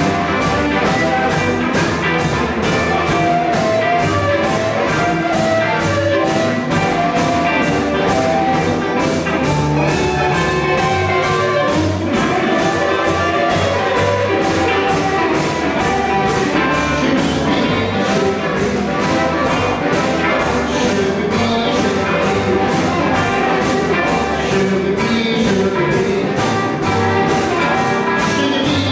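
Live 1950s-style electric blues band playing an instrumental: amplified harmonica played into a microphone over two electric guitars, upright bass and drums keeping a steady beat.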